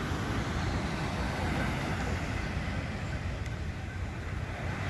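Steady low rumble of sea surf, with wind buffeting the microphone.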